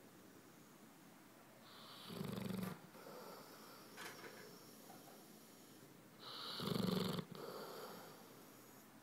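A sleeping pet snoring: two loud snores about four seconds apart, each lasting under a second.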